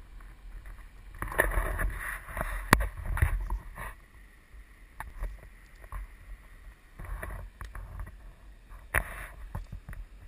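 Wind buffeting an action camera's microphone in uneven gusts, with sharp knocks and rubbing from the camera being handled and moved, loudest in the first few seconds.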